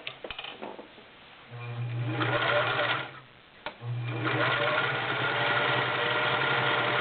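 Singer Model 348 all-metal, belt-driven sewing machine stitching through five layers of flannel. It runs steadily for a second and a half, stops briefly with a click, then runs again to the end, feeding the thick fabric without strain.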